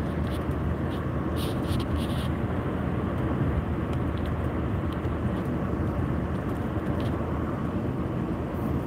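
Steady road noise inside a moving car's cabin: a low, even rumble of tyres and engine at cruising speed, with a few faint light clicks in the first couple of seconds.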